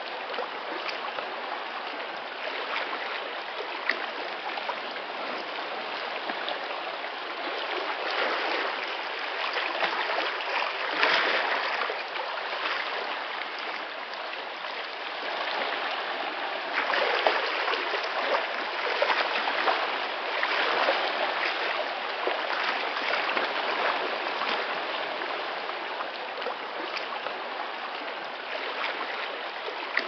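Atlantic Ocean surf breaking and washing in: a continuous rush of water that swells louder about a third of the way in and again just past halfway as bigger waves come in.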